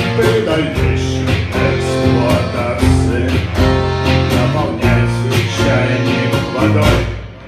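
Instrumental music led by guitar over a steady bass line, with an even beat, breaking off about seven seconds in.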